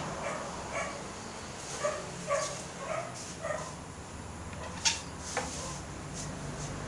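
A small animal yelping in short high calls, about five in a row. Sharp clicks, the loudest about five seconds in, come from balls knocking together on a toy billiard table.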